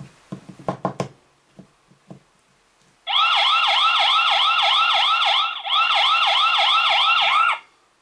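XTU J7 Plus battery video doorbell's tamper alarm set off by shaking the doorbell: a few handling clicks, then about three seconds in a loud electronic siren of rapid up-and-down pitch sweeps, about three a second, which dips briefly in the middle and cuts off shortly before the end.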